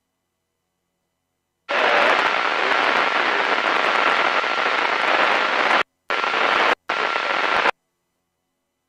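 Marine VHF radio giving a loud burst of static hiss with a faint steady whistle in it. It starts abruptly about two seconds in, breaks off twice for a moment and cuts off sharply near the end, with no voice in it.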